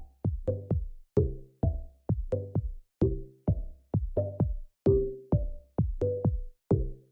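Electronic music with a steady drum-machine beat, about two beats a second, under low bass and synth notes.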